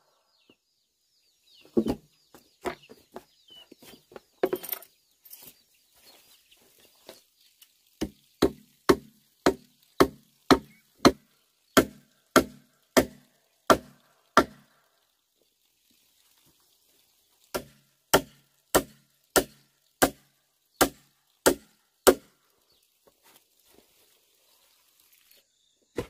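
A heavy knife chopping into green bamboo culms: sharp woody strikes, a few irregular ones, then two steady runs of nearly two strikes a second.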